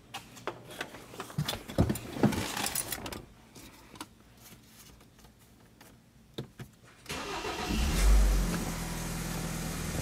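Clicks and knocks of someone settling into a car's driver's seat, then about seven seconds in the BMW X3's turbocharged engine is started: a brief crank, a short rev flare as it catches, then a steady idle. The engine starts and runs normally after repair of a crank-no-start condition.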